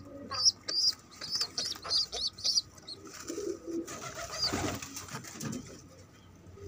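Pigeon squabs begging while an adult pigeon feeds them, making a quick run of short, high squeaky peeps, about three a second, for the first two and a half seconds. Then come lower, rough throaty sounds with feather rustling, and one more peep about four and a half seconds in.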